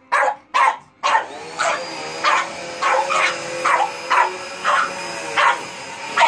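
A dog barks over and over, about one to two barks a second, at a vacuum cleaner. The vacuum cleaner switches on about a second in and keeps running with a steady whine under the barks.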